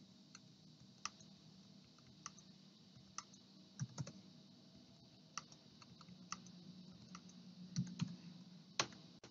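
Faint, irregular clicking of a computer keyboard and mouse as a value is keyed in, about a dozen clicks with the loudest near the end, over a low steady hum.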